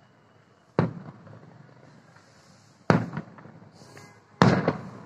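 Aerial firework shells bursting at a distance: three loud bangs about two seconds apart, each trailing off in an echo. The last is a quick double bang.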